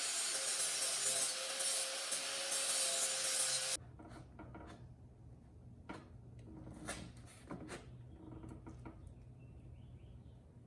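Lawn mower blade being sharpened: a loud, steady scraping that stops abruptly about four seconds in. After that come a few faint clicks and knocks of tools being handled over a low hum.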